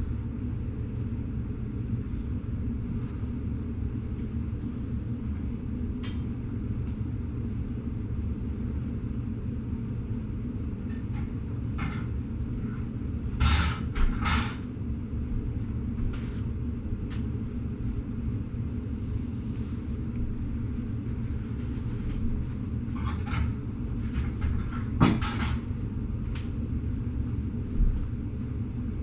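Steady low mechanical rumble, with a few short hissing bursts around the middle and again later on.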